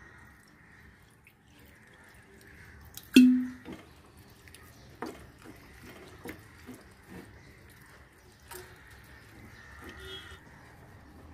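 Water poured from a bottle over fresh paneer curds in a cheesecloth-lined strainer, then a hand mixing the wet curds, with scattered soft clicks. A sharp knock with a short low ring about three seconds in is the loudest sound.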